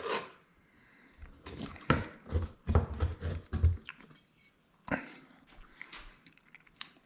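A series of dull knocks and taps on a drywall wall, bunched between about one and four seconds in, with a couple of lighter taps later.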